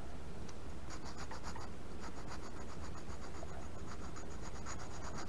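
Flat oil stone stroked back and forth across a twist drill's cutting edges in rapid short scraping rubs, starting about a second in with a brief pause. The stoning puts a small flat (negative rake) on the lips so the drill will not snatch when drilling brass.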